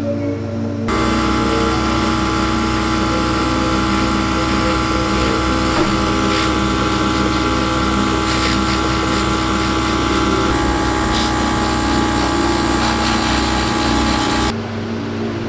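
Airbrush spraying paint: a steady hiss of air with the hum of its compressor running underneath. Starts abruptly about a second in and cuts off abruptly near the end.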